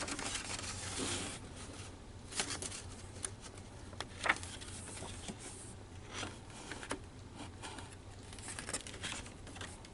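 Paper and cardboard being handled: rustling and crinkling with scattered light taps and clicks, the busiest rustling in the first second or so.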